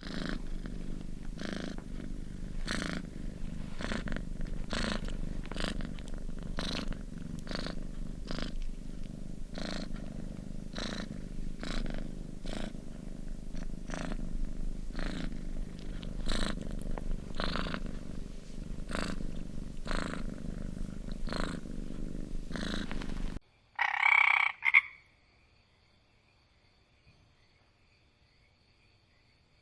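Cat purring: a steady low rumble that swells with each breath about once a second, then stops abruptly. After a short gap comes a single loud croak-like animal call.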